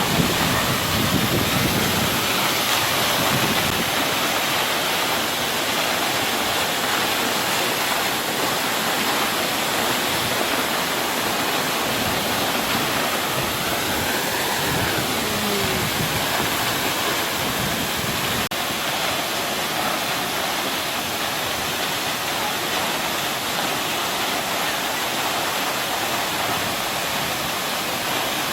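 Jeongbang Waterfall, a coastal waterfall that drops straight into the sea, falling in a steady, dense rush of water.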